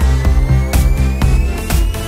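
Electronic dance background music: a heavy bass line with a drum hit about twice a second, and a thin synth tone rising steadily in pitch.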